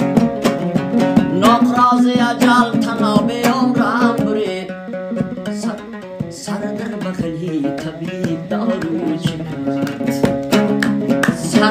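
Instrumental break of a Dari-language song: a plucked string instrument plays a quick melody over a steady drone, with sharp percussive strokes keeping the beat.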